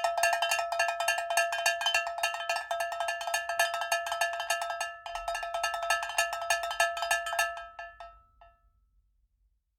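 A metal bell struck rapidly and repeatedly, several strikes a second on the same ringing pitches, stopping about eight seconds in and dying away.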